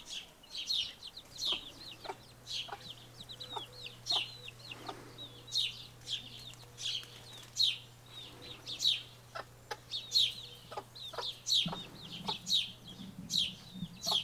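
Baby chicks peeping: a steady run of short, high, falling cheeps, about one or two a second.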